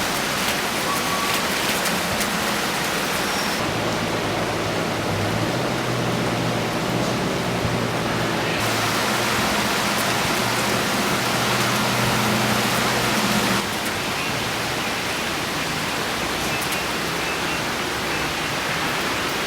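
Heavy rain pouring down in a constant, even hiss, with running water. A low steady hum sits underneath from about four seconds in until about thirteen and a half seconds.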